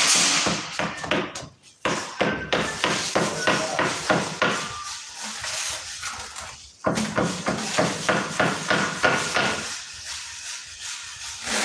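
Rapid light tapping of a hand tool against a marble slab, several taps a second, in two runs with a pause of about two seconds between them.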